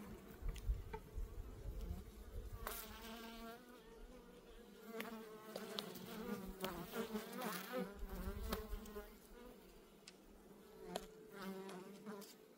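Buckfast honeybees buzzing over an open hive as a frame thick with bees is lifted out: a steady hum, with single bees flying close by whose buzz wavers up and down in pitch, and a few light clicks.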